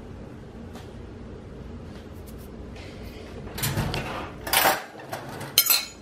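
Kitchen handling noise over a low steady hum: about halfway through come three short scrapes and clatters of dishes or containers, the last the loudest.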